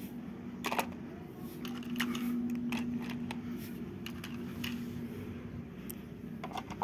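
Scattered light clicks and knocks of hard plastic toys being picked up and set down on a plastic toy truck, over a faint steady hum.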